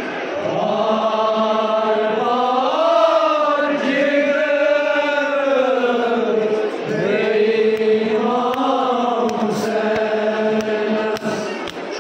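Men chanting a Shia Muharram noha (mourning lament) in long held notes that rise and fall in pitch.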